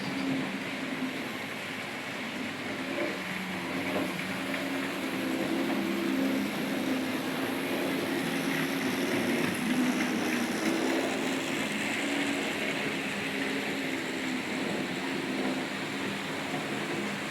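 H0-scale model trains running on the layout's track: a steady motor hum with a few wavering tones over the even rumble of wheels on rails.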